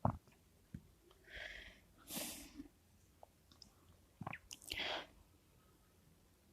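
A few faint, short breaths or sniffs, with small clicks between them.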